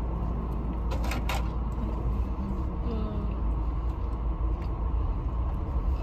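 Steady low rumble of a car's cabin with the engine running, with a couple of short clicks about a second in.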